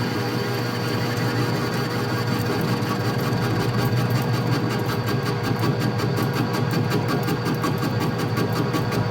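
Metal lathe running, taking a cutting pass on a small part, with a steady motor hum; about three seconds in, a fast regular ticking joins it and keeps on.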